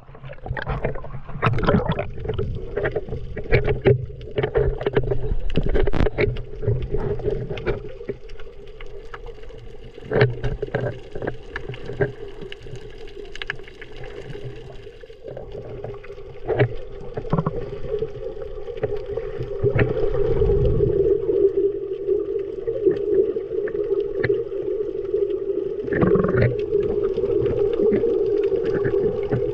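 Underwater camera audio: water sloshing and gurgling around the camera with scattered clicks and bubble pops, over a steady hum that grows louder in the second half.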